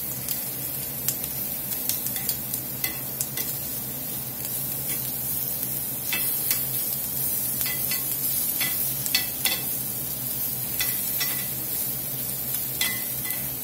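Sliced onions and red bell pepper sizzling on a ridged grill pan over a gas burner as they char. Metal tongs click against the pan now and then as the pieces are turned, over a steady low hum.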